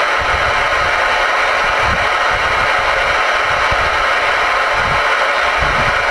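Steady hiss of static from a Galaxy DX-94HP ten-meter radio's speaker with no station coming in, the S-meter resting near zero.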